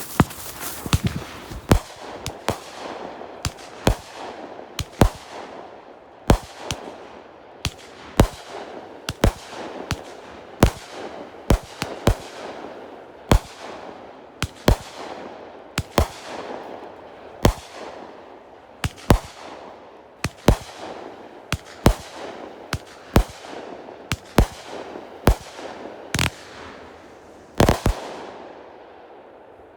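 Consumer firework cake firing a long barrage of shots, about one a second, each sharp bang trailed by a fading hiss; two louder bangs near the end close it. Not the plain string of bangs of a salute cake.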